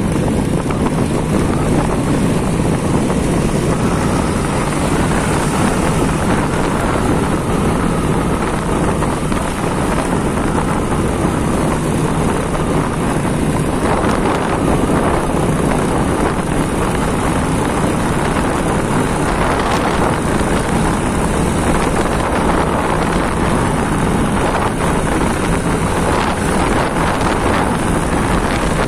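Steady wind rushing over the microphone of a moving vehicle, with the vehicle's engine and road noise running underneath.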